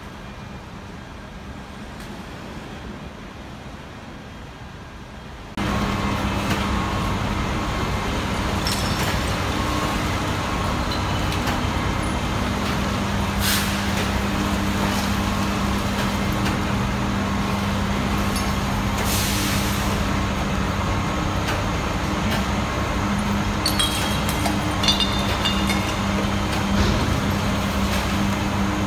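Heavy diesel trucks running steadily, a constant low engine hum, growing suddenly louder about five seconds in. Short air-brake hisses come twice, the second one longer.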